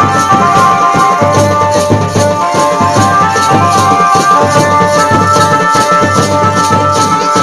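Instrumental music from an Adivasi folk song: a melody of held notes over a steady drum beat, with a shaker keeping time at about three strokes a second. There is no singing.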